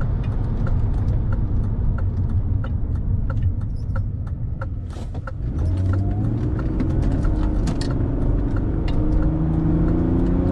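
BMW E36 driving, heard from inside the cabin: steady road rumble with a regular ticking about three times a second. About halfway through, the engine accelerates and its pitch rises.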